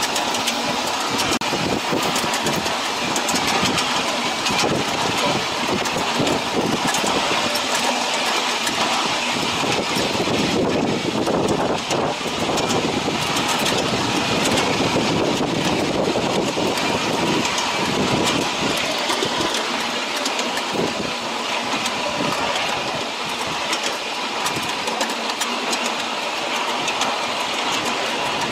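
Ride-on miniature railway train running along its narrow-gauge track, with a steady rattle and dense clicking from the passenger cars' wheels on the rails.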